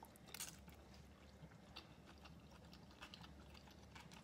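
Faint chewing of a mouthful of spaghetti pasta salad, with soft, scattered mouth clicks, a sharper one about half a second in, over a steady low hum.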